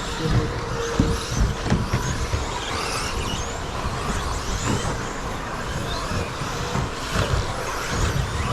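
A pack of 1/10-scale electric stadium trucks with 13.5-turn brushless motors racing on a carpet off-road track: short motor whines rising and falling as they accelerate and brake, with repeated knocks and thuds throughout.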